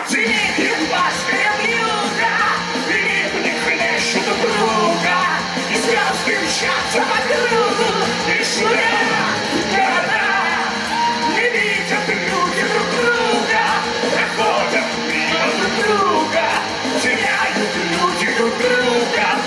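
Karaoke backing track of a pop song playing on, with several voices yelling and singing loosely over it.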